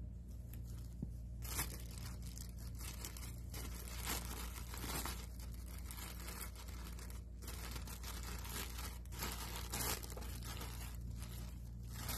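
Thin plastic crinkling and rustling as disposable shower caps are handled and pulled from their clear plastic bag. It starts about a second and a half in and goes on in irregular crackly bursts over a steady low hum.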